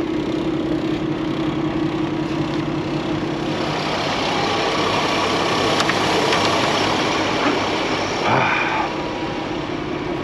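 Semi truck's diesel engine idling with a steady hum, while a snow brush sweeps snow off the front of the truck, the brushing strongest in the middle seconds.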